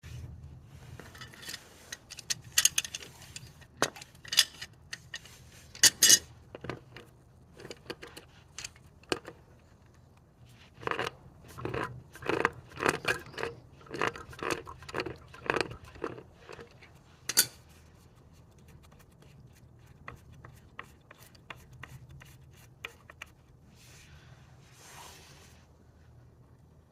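Irregular clicks, knocks and scraping from hand work on an irrigation valve's plastic fittings, with a quicker run of scraping strokes in the middle and a soft rustle near the end.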